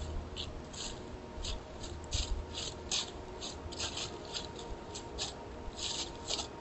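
A whitetail buck's hooves crunching and rustling dry fallen leaves in short, irregular bursts as it steps about on the forest floor.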